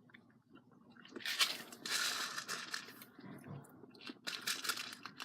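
Candy packaging crinkling and tearing in a few short noisy bursts; the longest comes a little over a second in and another near the end.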